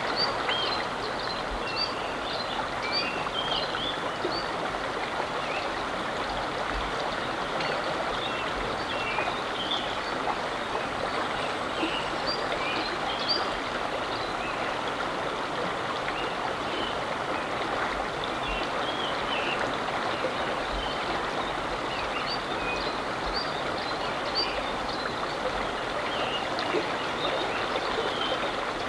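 River water running steadily, an even rushing with many small high chirps scattered through it.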